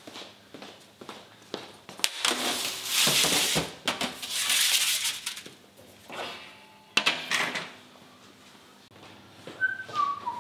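Metal baking trays of pepernoten slid into a stainless steel deck oven: two long scraping stretches, then clanks of the oven door being shut about seven seconds in. A few short whistled notes near the end.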